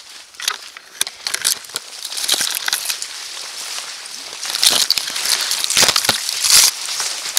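Footsteps crunching through snow and brush, with twigs crackling and branches brushing and scraping against a nylon jacket. The rustling is loudest about five and six seconds in.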